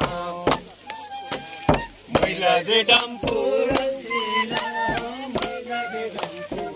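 Hand-held frame drums beaten in an uneven rhythm of sharp strokes, about one or two a second, with a group of men singing together.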